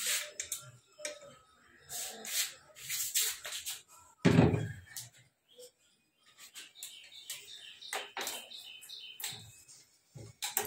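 Household handling noises: scattered clicks and knocks, with one heavy thump about four seconds in. Birds chirp in the background in the second half.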